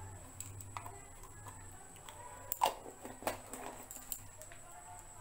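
A metal spoon clinking and tapping lightly against a bowl and a honey jar as honey is spooned over nuts and raisins, a handful of separate taps, the loudest a little past halfway.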